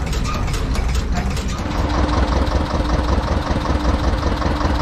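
A 1923 Ruston Hornsby Model IP 5 hp stationary engine running with a rapid, regular mechanical clatter. About a second and a half in, the sound changes to the steadier, busier running of a small engine-driven generator set.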